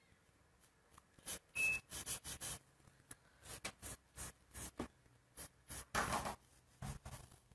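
Wooden graphite pencil scratching across drawing paper in a rapid series of short sketching strokes, the longest about six seconds in.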